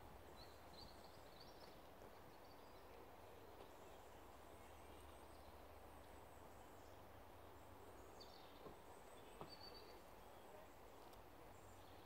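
Faint outdoor ambience: a steady low background rumble, with distant small birds giving short chirps now and then.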